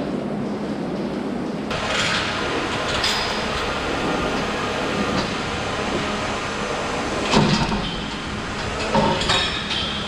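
Steady machinery noise of a dairy milking parlour with a faint low hum, broken by a few sharp metal clanks and knocks, the loudest about seven and a half seconds in.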